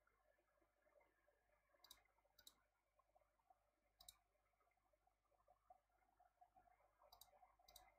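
Near silence with a few faint computer mouse clicks: two close together about two seconds in, one around four seconds, and two more near the end.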